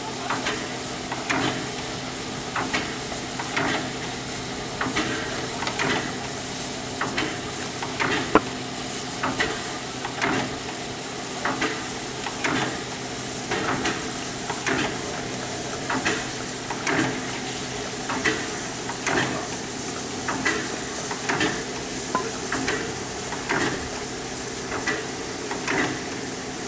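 Standing narrow-gauge steam locomotive 99 7242-3 with a steady steam hiss, its air pump beating evenly about every three-quarters of a second.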